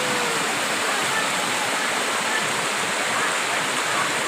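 Waterfall pouring into a rocky pool, a steady even rush of falling water.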